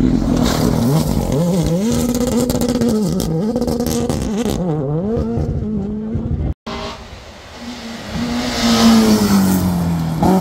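Rally car engine at full throttle, its pitch climbing and dropping again and again through gear changes and lifts while it slides through a gravel bend. After a cut about six and a half seconds in, a second rally car's engine, quieter at first, builds up as it drives the stage.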